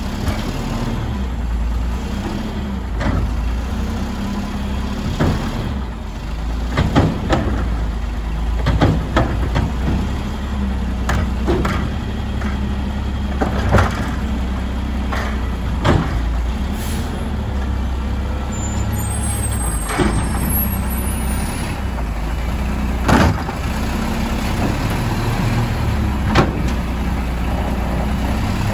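Natural-gas Mack LE garbage truck running steadily while its McNeilus automated side-loader arm works the carts, with repeated sharp clanks and knocks from the arm and the plastic carts.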